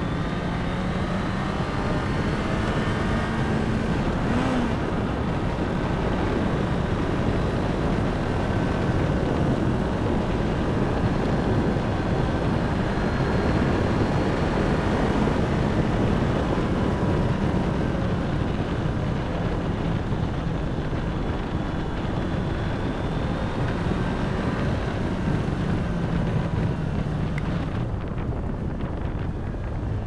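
2023 Honda CBR650R's 649 cc inline-four engine running under way at track speed, its note partly buried under a steady rush of wind on the microphone.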